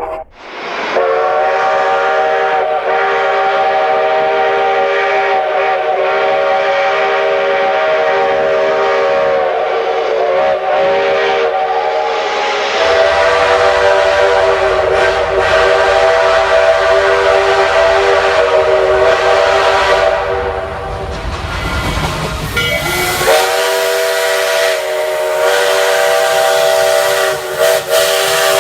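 Steam locomotive chime whistle blowing long sustained blasts, several notes sounding at once over a steady hiss of steam. The blast wavers about ten seconds in. A low rumble joins a few seconds later. The whistle dies away about twenty seconds in and sounds again a few seconds after.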